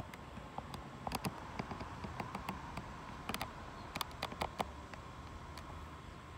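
Scattered light clicks and taps over a faint steady background hum, typical of a phone being handled while filming.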